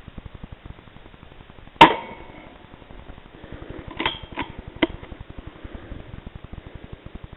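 A single suppressed rifle shot at rats about two seconds in, sharp with a short ring after it. Three quieter clicks follow between four and five seconds in, over a faint fast steady pulsing.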